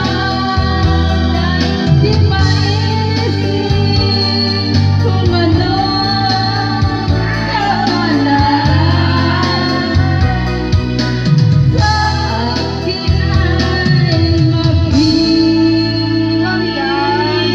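Music with singing: a song sung over an instrumental backing with a steady bass.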